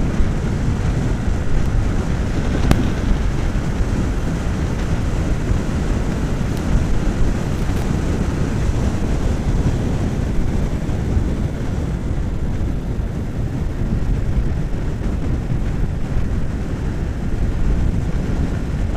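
Motorcycle engine and wind rushing over the bike-mounted microphone, a steady dense rumble as the motorcycle is ridden at speed on the road. The bike is working hard: the rider says it is struggling to keep up.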